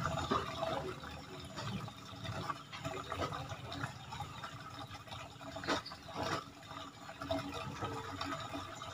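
Steady trickle of running water, with a few faint clicks.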